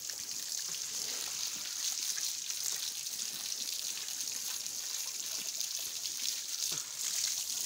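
A jet of water from a hose spraying and splattering onto a cow's wet hide and the ground: a steady hiss.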